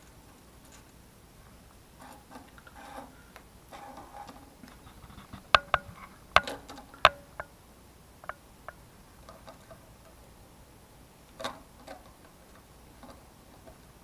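Small handling noises while soldering components onto a circuit board: soft rustling and light taps, with a cluster of four sharp clicks around the middle and another click near the end.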